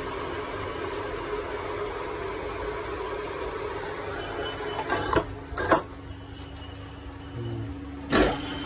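Metal lathe running with a steady machine hum. Sharp metallic knocks break in twice about five to six seconds in and once more near the end.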